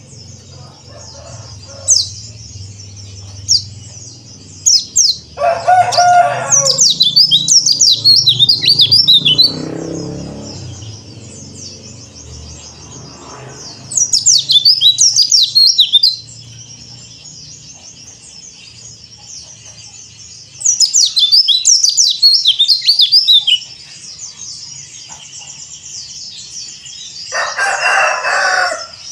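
Yellow-breasted white-eye (pleci dakbal) singing: a steady high twittering broken three times by loud runs of rapid chirping notes, with a shorter, harsher, lower call twice.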